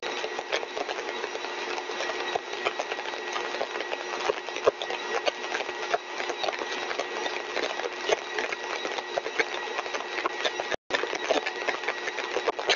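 Single-stage axial compressor rig (rotor and stator) running steadily at full design speed: a constant mechanical hum with two steady tones, one low and one high, and a stream of small clicks. The sound cuts out for a moment near the end.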